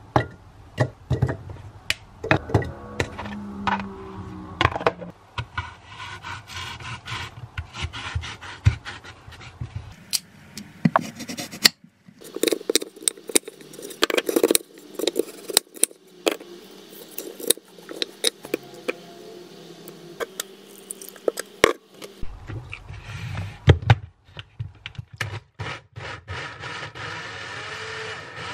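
Kitchen food preparation: irregular knocks, clicks and scraping as carrot pieces are dropped into a plastic blender cup and an apple is cut with a knife on a wooden chopping board.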